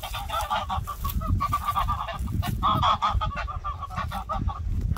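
Domestic geese honking together in a rapid series of short calls, breaking off shortly before the end.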